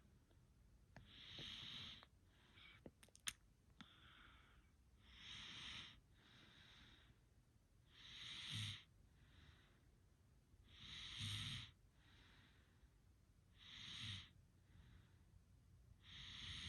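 A person snoring in a slow, even rhythm, about one breath every three seconds. Each loud noisy breath is followed by a softer one, with a low rattle under some of them. A few faint clicks come about three seconds in.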